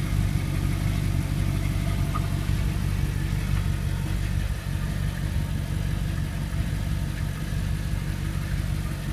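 A car engine idling steadily, a low even hum with no revving.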